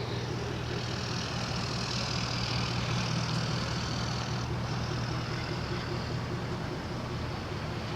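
Motor vehicle engine idling close by in stopped traffic, a steady low hum over the hiss of street traffic.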